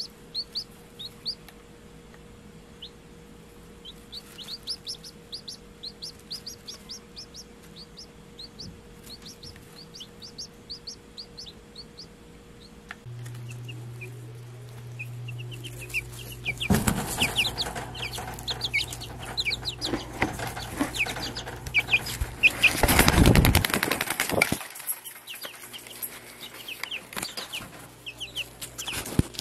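Young chicks peeping steadily, with many short, high, falling peeps. Through the middle there is a stretch of loud rustling and clattering, and the peeping carries on over it.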